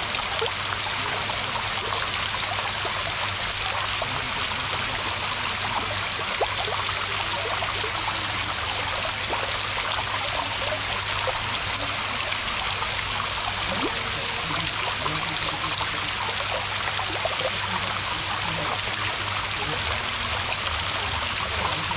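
Pool water-feature wall: many thin streams of water running down a curved stone wall and splashing into the swimming pool, a steady even splashing and trickling.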